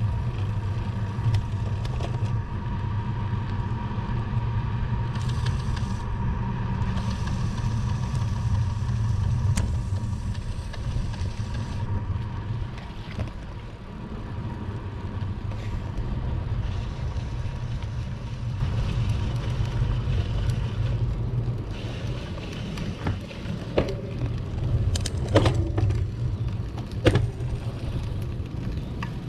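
Steady low rumble of wind buffeting the microphone and road noise while riding a bicycle, with a few sharp clicks near the end.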